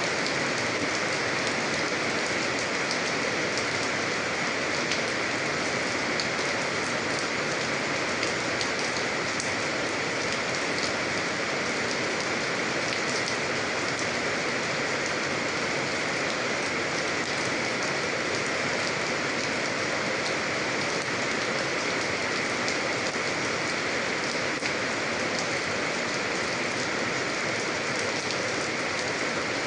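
Steady rain falling on a surface, a dense even hiss dotted with many fine drop ticks.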